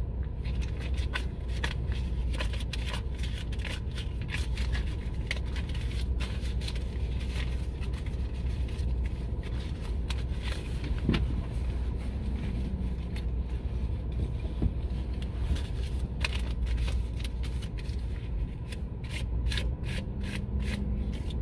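Car engine idling, heard from inside the cabin, with scattered irregular clicks and rubbing noises over it; the clicks come thickest near the end.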